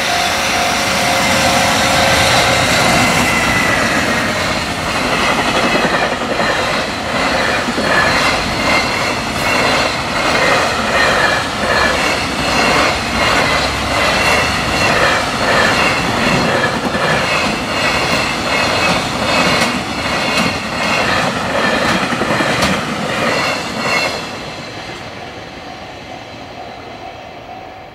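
Long JR Freight container train passing close at speed: a loud rush of wheels and wagons with a regular clatter of wheels over rail joints. It drops off suddenly about 24 seconds in as the last wagon clears, and the rumble fades away. A level-crossing alarm rings under it, clearest at the start and again near the end.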